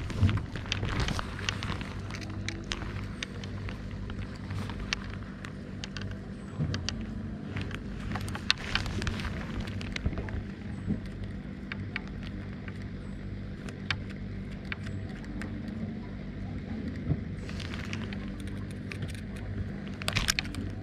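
Scattered clicks and scrapes of a knife being worked against a spinning fishing reel in the hand, over a steady low hum.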